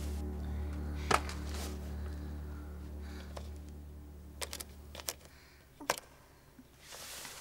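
Low, sustained background music fading out over the first five seconds, with several sharp clicks and taps as a small object is handled, the loudest about a second in and another near six seconds.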